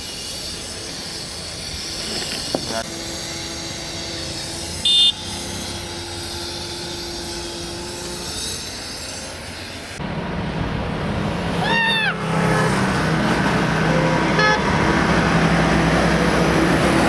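Steady outdoor hiss, then from about ten seconds in, city road traffic with a vehicle horn honking, once with a pitch that bends up and down and again briefly a couple of seconds later.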